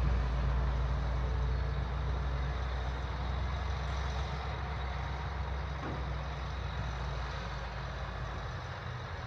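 John Deere 8270R tractor's diesel engine running steadily, slowly growing fainter.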